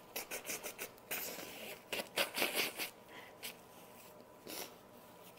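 A person blowing their nose in a series of short, hissing blasts, the loudest about two seconds in, followed by a few fainter ones.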